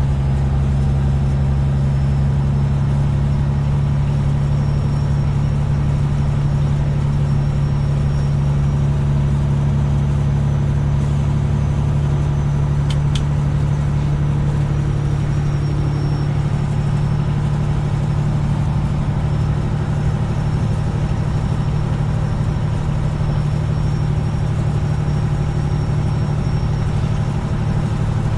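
Semi truck's diesel engine running at a steady pitch, heard from inside the cab while driving. One short click about thirteen seconds in.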